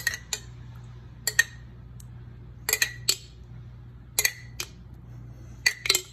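Metal spoon clinking against a glass jar while scooping out tomato sauce: short, sharp clinks in pairs or threes about every second and a half, over a steady low hum.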